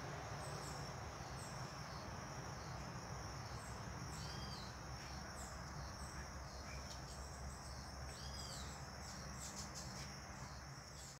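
Faint background of birds chirping, with one bird repeating a short arched call three times, about every three and a half seconds, over a steady low hum.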